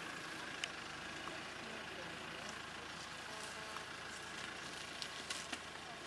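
Safari game-drive vehicle's engine idling quietly, a low steady hum under a faint hiss, with a few soft clicks.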